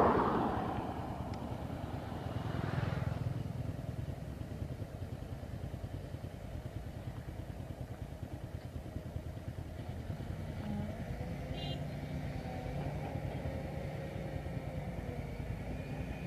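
Vehicle engines running with a steady low rumble, swelling as a vehicle passes close right at the start and again about three seconds in; a fainter engine drone with a clearer pitch comes in during the second half.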